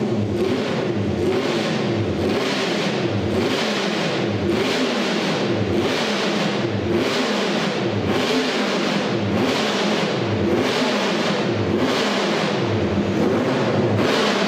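Classic MV Agusta Grand Prix racing motorcycle's engine running and being blipped on the throttle over and over, about three revs every two seconds, each rev falling straight back.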